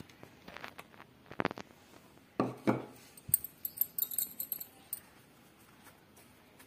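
Gram flour being sifted through a steel mesh sieve over a bowl. A cup clinks and knocks against the sieve a few times in the first three seconds, then a faint, rapid, scratchy rattle comes as fingers rub the flour through the wire mesh.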